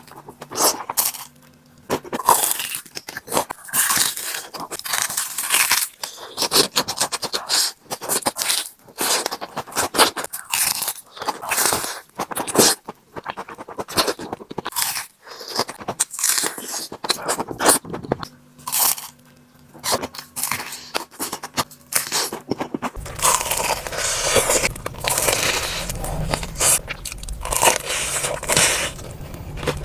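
Close-up crunching and chewing of crispy batter-coated mozzarella corn dogs, in many short crackly bites and chews. From about two-thirds of the way in, a steady low hum sits under the eating.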